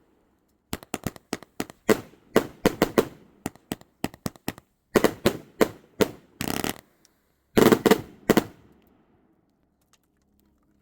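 A 500 g, 120-shot firework cake firing its last shots: rapid volleys of sharp bangs in quick bursts, with a brief dense rattle just past the middle. The bangs stop about eight and a half seconds in.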